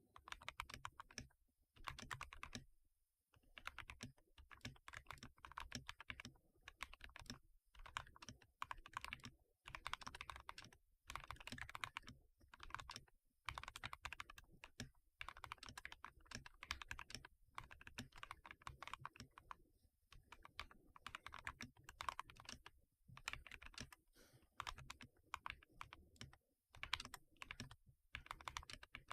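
Glorious GMMK 2 mechanical keyboard being typed on: quick runs of keystroke clicks lasting a second or two, with short pauses between them.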